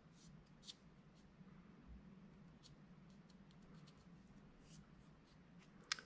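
Near silence with faint rustles and small ticks of fingers handling a rolled cardstock quilling coil, holding its freshly glued end closed; a slightly louder tick comes near the end.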